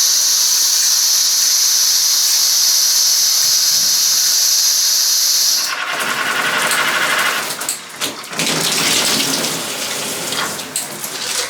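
Oxygenics Evolution shower head spraying water hard, a loud steady hiss. About six seconds in the spray changes to a broader, more uneven splashing as it is switched to another spray setting.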